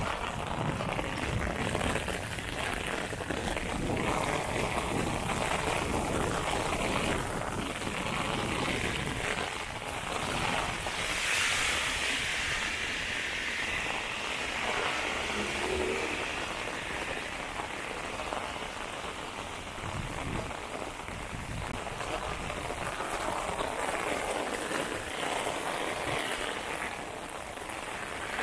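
Heavy rain pattering on the pavement and on an umbrella overhead, a steady hiss of falling water that swells louder briefly about eleven seconds in.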